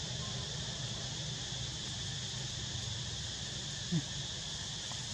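Steady drone of an insect chorus over a low, even hum. A brief low sound falls in pitch about four seconds in.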